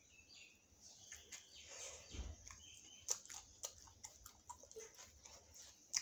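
Close-miked eating of a paneer momo: biting and chewing, with many small wet clicks and smacks from the mouth. One sharp click comes right at the end.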